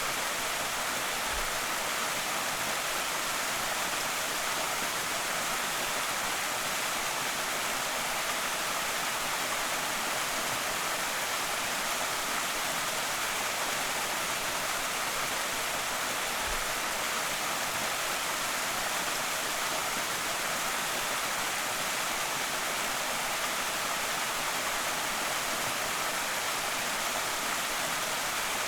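Small creek waterfall: a steady, even rush of falling water, brightest in the hiss range, without change or break.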